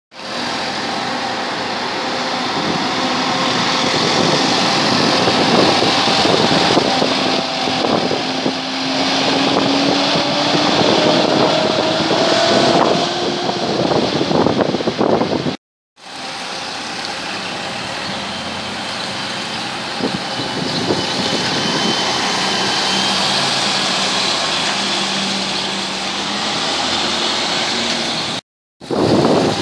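City bus engine running as the bus pulls away, its pitch rising steadily over several seconds, then steady street traffic.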